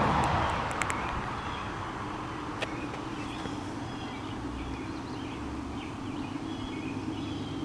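Distant diesel freight train approaching, heard as a steady low engine drone after a louder rush dies away in the first second, with birds chirping faintly.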